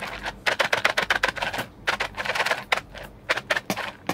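Boiled, dehulled soybeans rattling inside a lidded plastic food container as it is shaken and tilted to mix in tempeh starter: bursts of rapid clicking with brief pauses.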